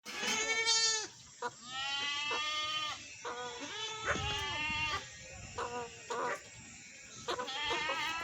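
Goat bleating repeatedly, a string of wavering calls about a second long each with short breaks between them, some shorter ones toward the end.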